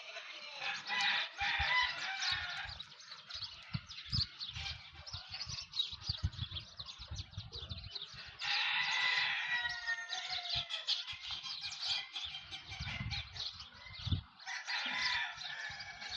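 Desi chickens calling, with roosters crowing in three bouts: at the start, about halfway through and near the end, and clucking in between.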